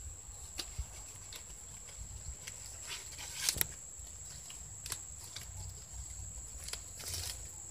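Fresh coconut palm leaf strips rustling and crackling as they are handled and threaded through a woven palm basket, in small irregular clicks, the sharpest about three and a half seconds in, with a faint steady high whine underneath.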